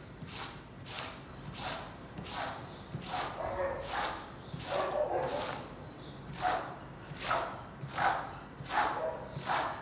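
Rubber squeegee dragged in quick repeated strokes across a soaked rug, squishing water out of the pile, about one stroke every three-quarters of a second.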